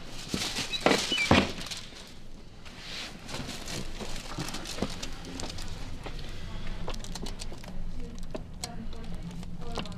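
Rustling and bumping as a patient turns over on a chiropractic treatment table, loudest about a second in, then scattered light clicks and rustles.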